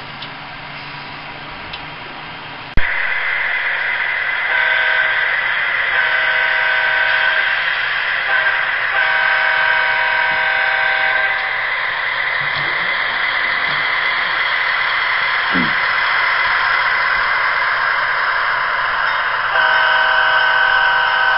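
Sound-equipped HO-scale model diesel locomotive (DCC sound decoder) playing through its small speaker. A steady running sound cuts in suddenly about three seconds in, and an air horn sounds long, long, short, long, the grade-crossing signal. Another long horn blast starts near the end.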